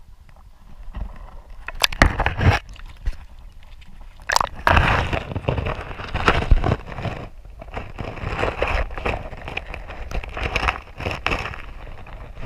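Shallow lake water splashing and sloshing around a GoPro held at and under the surface, with sharp knocks about two and four seconds in, then a dense rushing and crackling of water against the camera housing.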